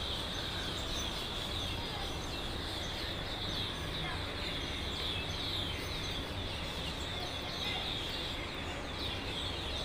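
Many birds chirping at once in a continuous high chorus of quick, short chirps, over a low steady background rumble.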